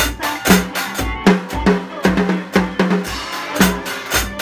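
Acoustic drum kit played with sticks: bass drum thuds, snare hits and cymbal strokes in a steady groove, with a quick run of closely spaced drum strokes about two seconds in.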